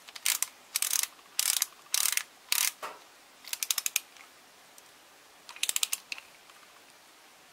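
Hand ratchet clicking in repeated short bursts of rapid clicks as it is swung back and forth, running down and tightening the valve cover bolts.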